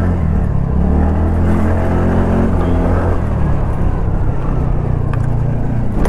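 TVS Ntorq 125 scooter's single-cylinder four-stroke engine running steadily while being ridden, a low even hum with road and wind noise over it.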